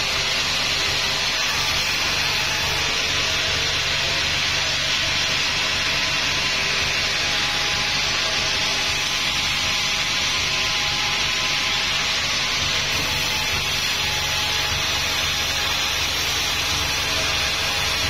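Vertical band sawmill running and ripping wadang timber lengthwise: a steady, unbroken noise of the band blade cutting through the wood, with the machine's low hum beneath.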